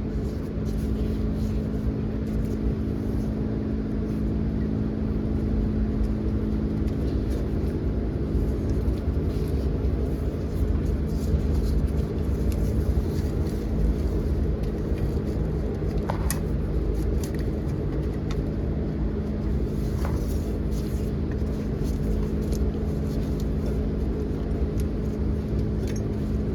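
Steady low mechanical drone with a fixed pitch, like a running motor, and a few light metallic clicks about two-thirds of the way through.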